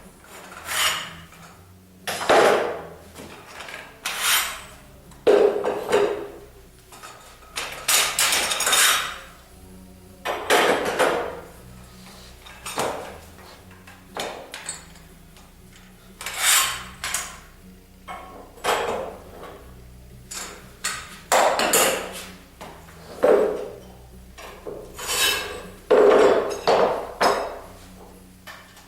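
Legs and parts of a folding dent-repair stand being pulled out and handled, giving about a dozen irregular knocks and sliding scrapes.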